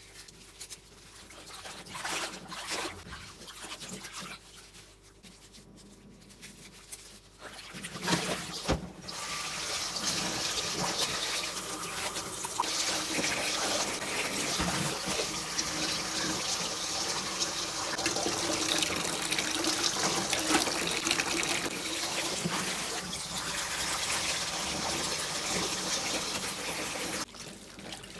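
Water sloshing and splashing in a stainless steel bowl as gloved hands swish and squeeze a T-shirt in it, rinsing the bleach out. About eight seconds in, the tap starts running steadily into the bowl, and it stops shortly before the end.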